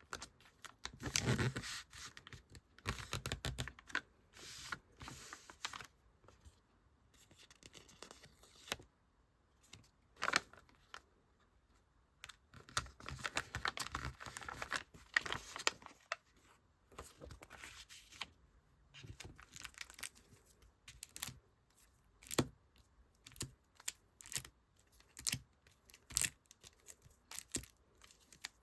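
Paper and plastic sticker packaging being handled and packed: irregular bursts of rustling and crinkling, with short pauses between them.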